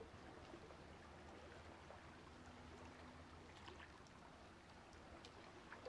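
Near silence: faint steady low hum and hiss, with a few faint ticks in the second half.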